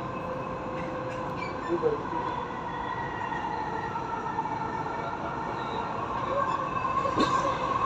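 Dubai Metro Red Line train running at speed, heard from inside the carriage: a steady running rumble with a steady electric whine over it, and a single short click near the end.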